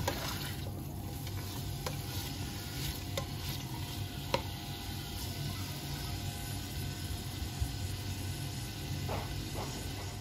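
Tofu and vegetables sizzling steadily in oil in a stainless steel pot, stir-fried with a plastic spatula that scrapes and taps against the pot a few times. A low steady hum runs underneath.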